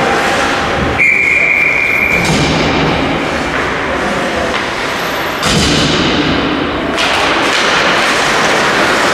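Ice hockey rink sounds during play: thuds of puck, sticks and players against the boards over a steady wash of rink noise. A steady high tone sounds about a second in and lasts just over a second.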